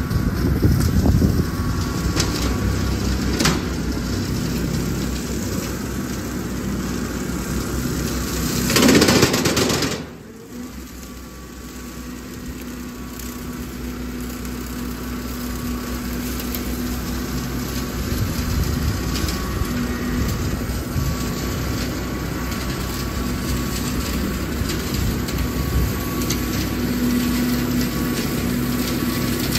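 Kubota L3901 tractor's three-cylinder diesel engine running under load while its PTO-driven Land Pride brush hog (rotary cutter) mows through thick brush. A louder rushing surge about nine seconds in cuts off abruptly, then the steady engine drone builds back.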